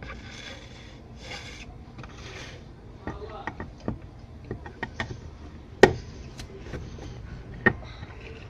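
Screws being driven and tightened by hand into a washing machine tub to hold a new shaft assembly: three short scraping rasps, then a run of light clicks and knocks from the screwdriver and parts, the loudest about six seconds in.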